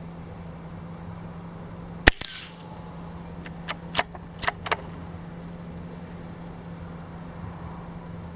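A single shot from a CZ 455 .22 LR bolt-action rifle, a sharp crack with a short echo about two seconds in. A second and a half later comes a quick run of four or five metallic clicks as the bolt is worked to eject the spent case and chamber the next round.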